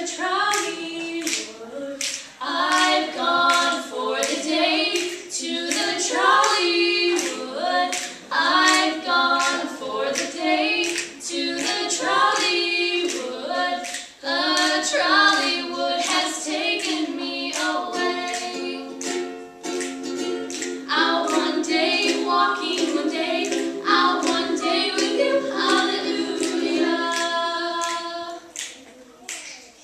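Two female voices singing in harmony to a strummed ukulele, with a steady rhythm of hand claps. From about 18 seconds in they hold long notes together, and the song fades out near the end.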